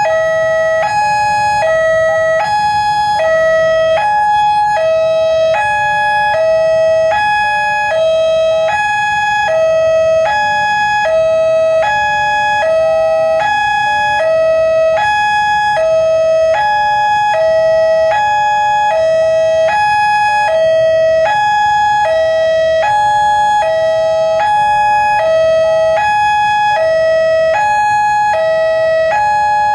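Railway level-crossing warning alarm sounding: a steady electronic two-tone signal alternating a higher and a lower note about once a second, the sign that a train is approaching and the barriers are down. A low rumble of road traffic runs underneath.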